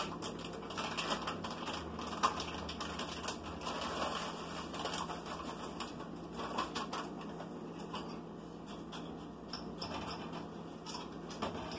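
A spoon stirring a pot of mushroom soup and peas and carrots on the stove: a run of irregular light clicks and scrapes, busiest for the first six seconds or so and sparser after.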